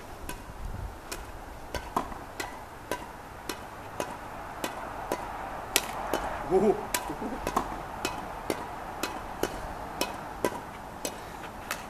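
Badminton rackets striking a shuttlecock in a continuous rally: sharp strikes, a little under two a second.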